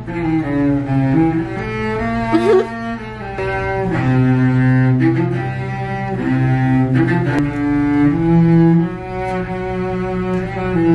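Background music of slow, sustained low notes that change pitch every second or so.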